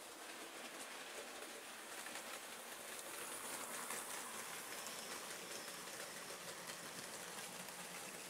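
Model railway wagons loaded with real slate rolling past on the track, a steady rattling hiss of wheels on rail with faint clicks. It grows loudest about three to four seconds in as the wagons pass closest.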